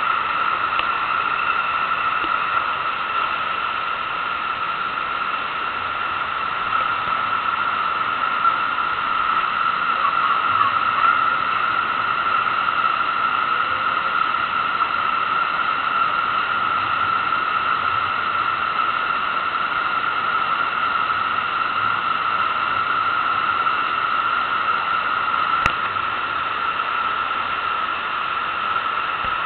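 Steady rushing hiss of water pumped over a FlowRider sheet-wave machine, with a constant hum running through it.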